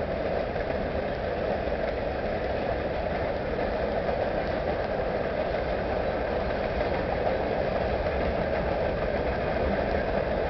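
Freight cars of a manifest train rolling across a trestle bridge: a steady, even noise of steel wheels on the rails.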